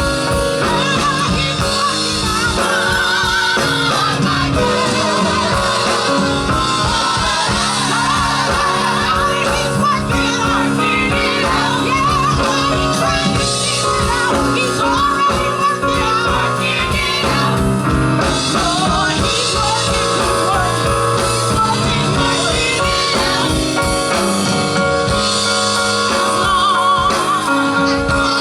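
A gospel vocal group singing live with band accompaniment, drums keeping a steady beat.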